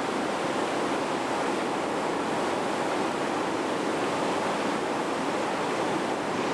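Whitewater rapid rushing steadily, a constant noise of churning river water.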